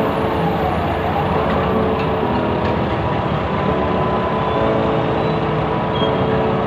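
Heavy diesel machinery running steadily, a dense drone with a few held whining tones.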